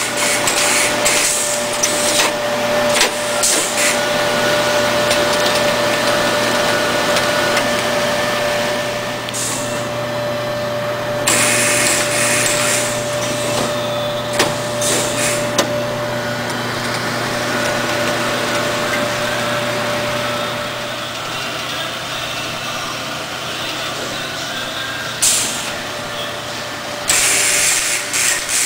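Shanklin A-27A automatic shrink-packaging machine running: a steady mechanical hum with a constant whine, a few clicks, and short bursts of hissing, once about eleven seconds in and again near the end.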